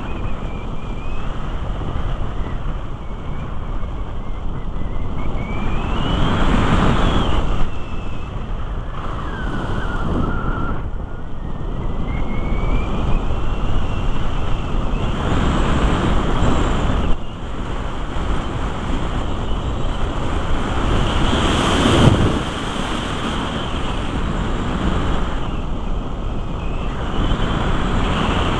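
Rushing airflow over a Musger MG12a glider in flight, buffeting the on-board camera's microphone, swelling and easing a few times. A thin whistle slides up and down in pitch through the first half.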